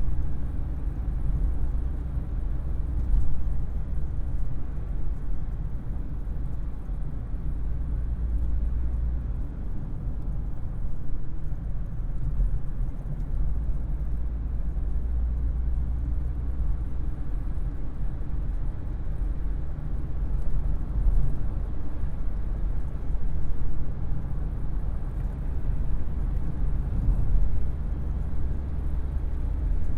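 Vauxhall Carlton running, a steady low rumble that swells and eases slightly.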